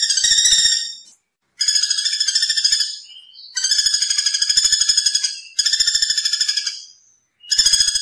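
Common flameback woodpecker giving its rattling trill call: rapid, evenly repeated high notes in about five loud phrases of one to one and a half seconds, each separated by a short pause.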